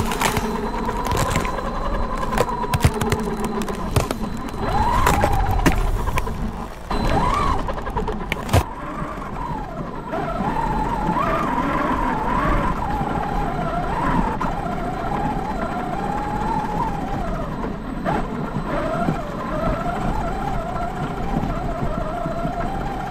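Large RC truck driving, heard from on board: its motor whines, the pitch rising and falling with the throttle. Its tyres clatter over ice for the first third or so, then give a duller crunch in snow.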